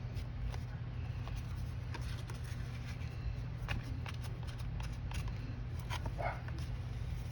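Light taps and rustles of a paper card panel being handled and pressed into wet ink on a craft sheet, over a steady low hum, with a short squeak about six seconds in.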